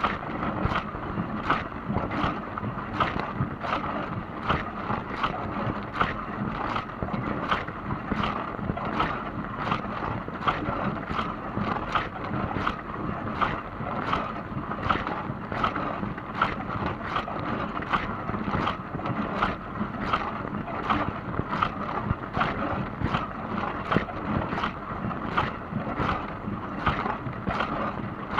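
Dishwasher running mid-wash: a steady rush of water spray inside the tub with a regular short splash or tick about twice a second.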